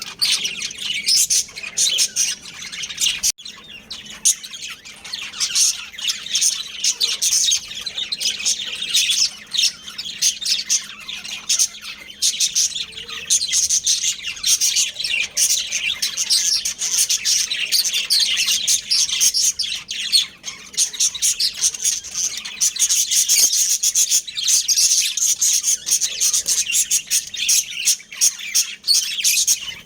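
Budgerigars chirping in a continuous fast stream of short, high chirps.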